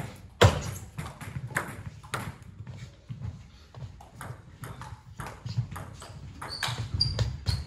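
Table tennis balls clicking off bats, table and floor: a string of sharp, irregular ticks with a short ring, the loudest about half a second in.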